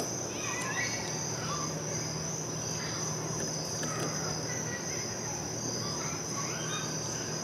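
Steady high-pitched chirring of crickets, with a few faint bird chirps over it.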